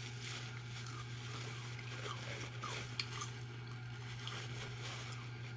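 Faint, wet chewing of a bacon cheeseburger, with small squelching mouth sounds and clicks, over a steady low hum.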